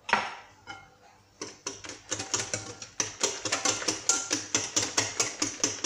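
Wire whisk beating a thin liquid batter of eggs, sugar, oil and milk in a glass bowl: a fast, even run of sharp clicks as the wires strike the glass, about six or seven a second, starting about a second and a half in. A single knock comes right at the start.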